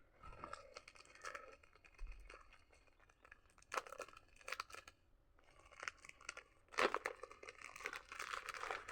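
A parcel's packaging being torn open and crinkled by hand: irregular crackling and rips, loudest about four seconds in and again through the last two seconds.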